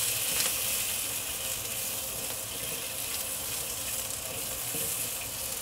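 Whole green beans searing in hot oil in a wok: a steady sizzle.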